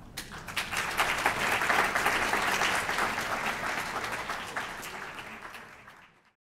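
Audience applauding, swelling over the first couple of seconds and then fading away to silence near the end.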